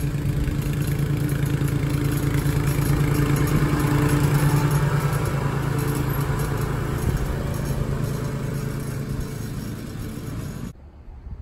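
Toro TimeMaster walk-behind lawn mower's engine running steadily while mowing. It grows a little louder, then fades as the mower moves away, and the sound cuts off suddenly near the end.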